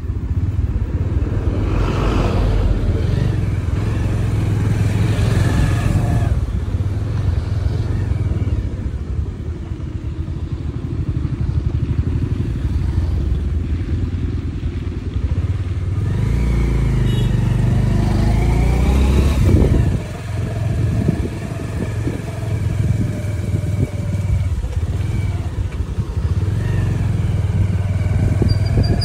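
Motorcycle engine running steadily at low speed, with a rise and fall in pitch a little past the middle.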